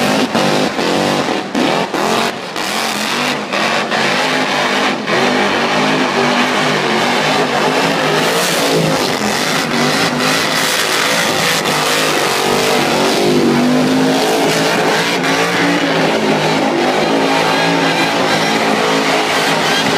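Supercharged burnout car's engine held at high revs while its rear tyres spin in a burnout. The note wavers continuously and dips briefly a few times in the first few seconds.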